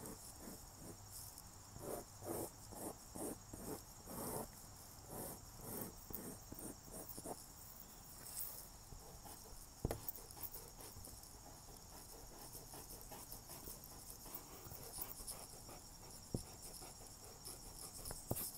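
Graphite pencil sketching lightly on drawing paper: a run of short, soft scratching strokes through the first several seconds, then only a couple of isolated ticks. A faint steady high-pitched hiss runs underneath.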